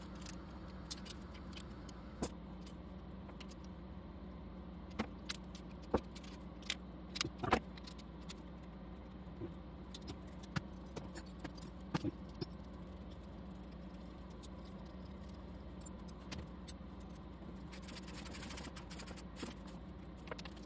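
Scattered light metallic clicks and clinks of small engine parts and hand tools being handled during valvetrain work on a small-block Chevy, over a steady low hum. The clicks are irregular and bunch up in the middle of the stretch.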